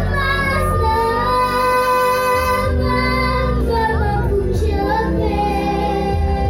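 A young girl singing solo in long, held notes that slide between pitches, over backing music.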